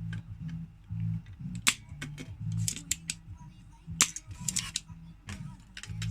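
A few sharp clicks and snaps, one about two seconds in and a cluster about four seconds in, over background music with a steady low beat.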